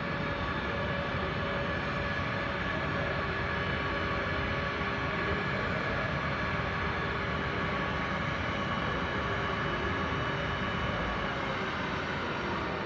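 Steady whine of an idling jet turbine over a low rumble, several even tones held without change.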